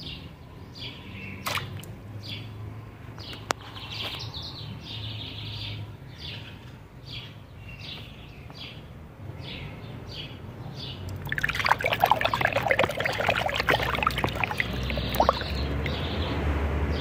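A bird chirps over and over, a short falling call about twice a second. About eleven seconds in, water splashes and trickles loudly for about five seconds as a plastic toy dinosaur is swished and rinsed in a plastic tub of water; this is the loudest sound.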